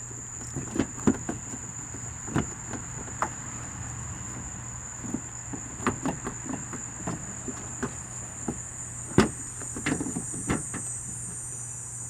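A plastic headlamp assembly being wiggled out of its mounting after its bolts are removed: irregular clicks, knocks and creaks of plastic, the sharpest about nine seconds in. A steady high-pitched whine runs underneath.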